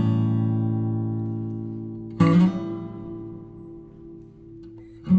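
Background music on acoustic guitar: a chord strummed and left to ring and fade, a second chord about two seconds in, and a new one beginning right at the end.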